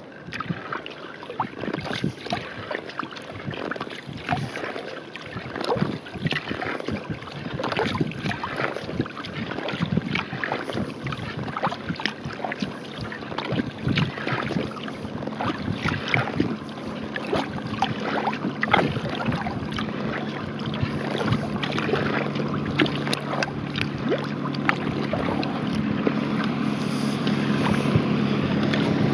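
Wooden paddle blades dipping and splashing alongside a skin-on-frame kayak, with water trickling and dripping between strokes. In the last third a distant motorboat's engine hum comes in and grows steadily louder.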